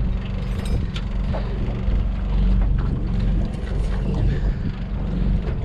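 Boat's outboard motor running at trolling speed: a steady low hum.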